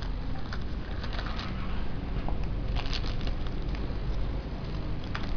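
Plastic handling noise: a clear plastic toy capsule being pried open, then a small plastic bag crinkling and rustling in the fingers, heard as irregular little crackles and ticks over a steady low rumble.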